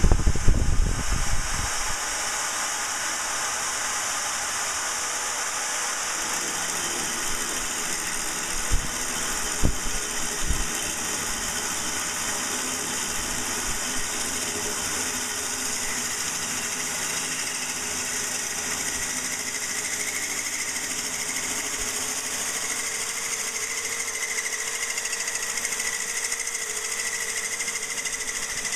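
Corded drill spinning a water-cooled diamond-coated hole saw, grinding steadily through aquarium glass. A few knocks come in the first second and again about nine to ten seconds in, and a faint higher whine joins the grinding in the second half.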